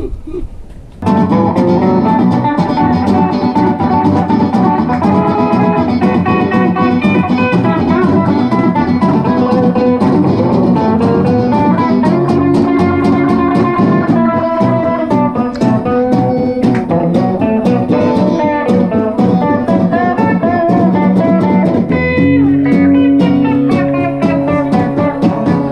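Electric guitar with drums playing music, starting abruptly about a second in.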